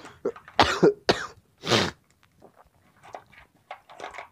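A man coughs three times, loud and short, within the first two seconds. Then loose electrolytic capacitors click and rattle in a plastic parts box as a hand sorts through them.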